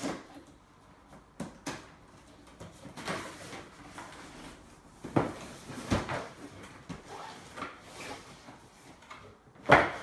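Cardboard drone box being opened by hand: the lid and flaps scraping and knocking, with packaging rustling in between. A sharper knock near the end is the loudest.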